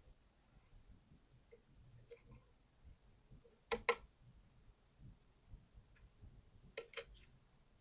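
Metal lock pick clicking and scraping against the pins and sharp warding inside an Abus V14 pin-tumbler cylinder: a few scattered clicks, with louder pairs of clicks just under four seconds in and about seven seconds in.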